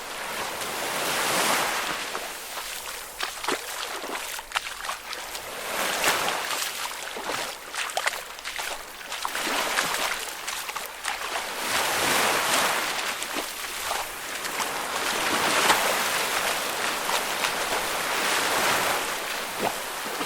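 A person wading through deep water, each stride a swelling splash about every one to two seconds, with small sharp splashes and drips between.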